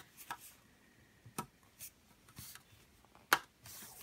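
Plastic Lego pieces clicking and knocking together as a ramp section is pressed onto the back of the ferry: a few scattered clicks, the loudest about three seconds in, with brief soft rubbing between them.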